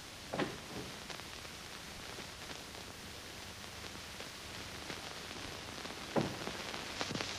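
Steady hiss and crackle of an old optical film soundtrack, with a few faint knocks: one about half a second in and another about six seconds in.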